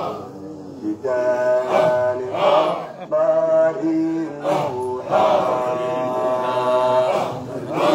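Male voice chanting a Sufi Qadiriya dhikr in Arabic through a microphone, drawing out each phrase on long held notes with short breaks between them.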